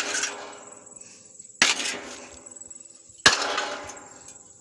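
A board smashing down on a metal plate from a lawn mower: three hard bangs about a second and a half apart, each leaving a short metallic ring.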